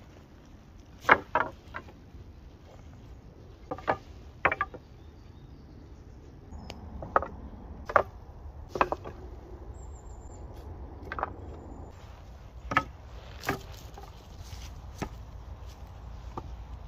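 Peeled wooden poles knocking against each other and the log rails as they are laid down side by side to form a raised platform: about a dozen sharp wooden knocks at irregular intervals.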